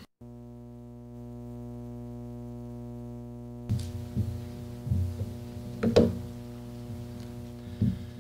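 Steady electrical hum with a buzz of many overtones, setting in abruptly just after the start. From about halfway, a few soft knocks and thumps break in, the loudest near the end.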